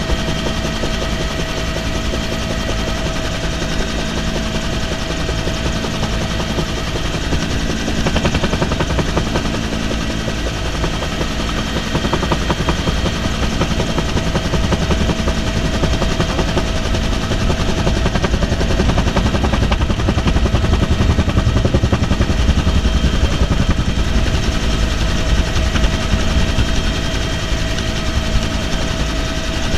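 Helicopter in flight, heard from inside the cabin with the side door open: the fast chop of the main rotor under a steady high turbine whine. It grows louder about halfway through.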